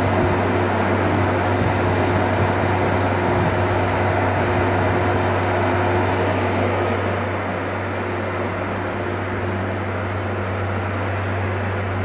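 Milk chiller's refrigeration unit running while it is charged with refrigerant gas: the hermetic compressor's steady low hum under an even rushing fan-like noise, easing slightly about seven seconds in.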